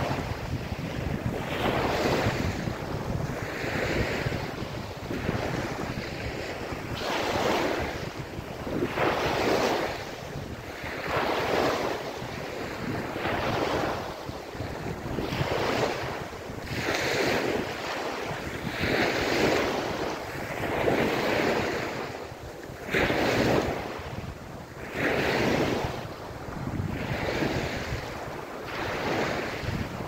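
Small sea waves breaking and washing up a sandy beach, a new wash swelling in about every two seconds, over a steady rumble of wind on the microphone.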